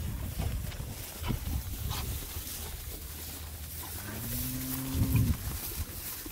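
A cow mooing once about four seconds in: a single low call of just over a second that drops in pitch as it ends.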